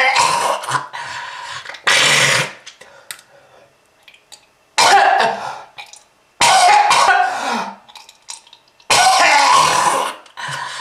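A smoker coughing hard, about five loud coughs or short coughing bouts a couple of seconds apart, with quiet gaps between.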